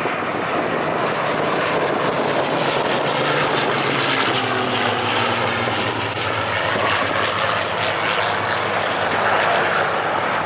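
Piston-engined propeller warbirds running at flying power: a loud, steady drone of several aircraft engines.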